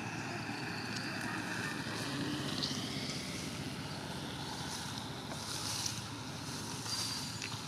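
Steady outdoor rumble of wind on the microphone, with a few brief high chirps scattered through it.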